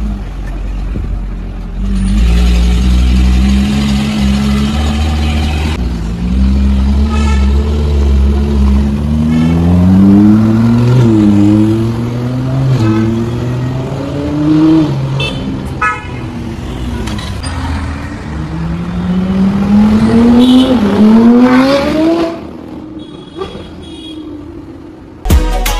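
Ferrari V8 supercars accelerating away: a deep rumble, then the engine pitch climbs and falls back at each upshift, several times in a row.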